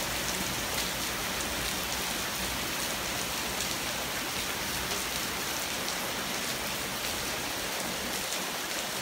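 Heavy rain pouring down steadily in a torrential thunderstorm downpour, a dense even hiss with scattered drop ticks on hard surfaces.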